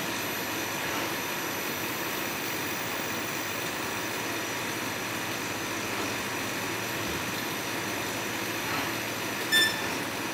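Mosaic-tile assembly robot running, its motors making a steady mechanical hum with a hiss. About nine seconds in, a short high-pitched tone sounds once, the loudest thing here.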